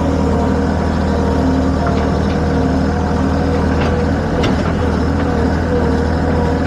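Vehicle engine running steadily with a wavering whine over a deep drone, and a couple of light knocks about four seconds in.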